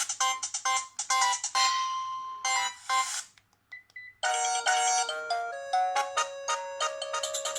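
Polyphonic ringtones playing from a Sharp GX25 Ferrari Edition mobile phone. One bright melody ends about three seconds in, a couple of short beeps follow, and a different melody starts just past the halfway point.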